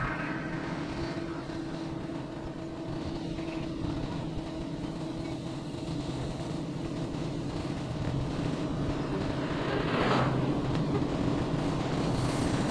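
Vehicle driving along a road: a steady motor hum with tyre and wind noise, and a brief louder rush about ten seconds in.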